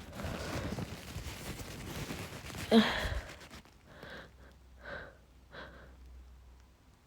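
A woman with a head cold sneezes once, loudly, about three seconds in, after a stretch of noisy breathing. Three short catching gasps follow as the next sneeze builds.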